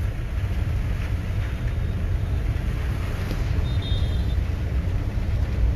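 Steady low rumble of a car driving along a rain-soaked, waterlogged street, heard from inside the car. A faint, brief high tone sounds about four seconds in.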